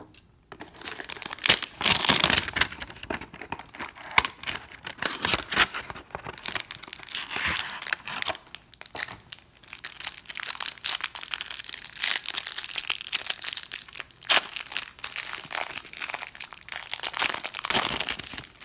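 Cardboard and plastic wrapping being torn open and crinkled by hand, an irregular crackling rustle that runs on with short pauses: a retail hanger box of trading cards and its cellophane card pack being unwrapped.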